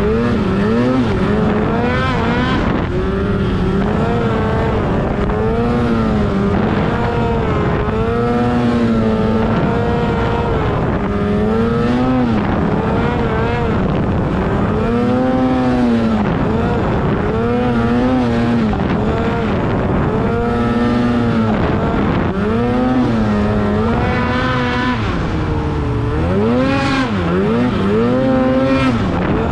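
Polaris Pro RMK 800 snowmobile's two-stroke twin engine through a GGB mountain can exhaust, revving up and down over and over as it pushes through deep powder snow, its pitch rising and falling every second or two.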